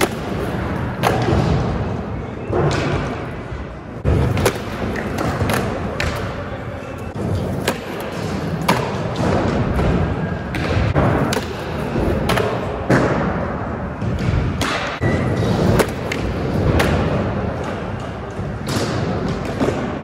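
Skateboards rolling on a smooth concrete floor, with many sharp clacks and thuds of boards and trucks hitting and grinding a metal-edged ledge (slappy grinds), ringing in a large hall.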